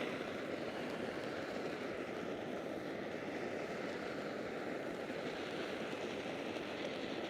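Consumer firework fountain spraying sparks: a steady, even hiss with no crackles or pops.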